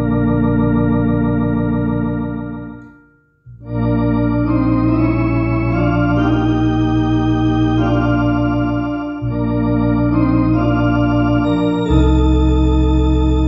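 Two-manual electronic organ playing a hymn in sustained chords with vibrato over low bass notes. About three seconds in the sound dies away briefly between phrases, then the chords resume, with a heavier bass note near the end.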